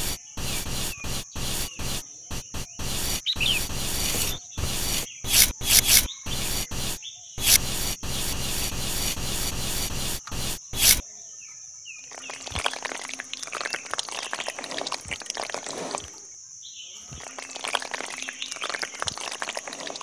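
A miniature metal shovel scraping and scooping sand in short, choppy strokes. About eleven seconds in it gives way to a quieter crackling, as wet cement is poured onto the sand. Birds chirp throughout.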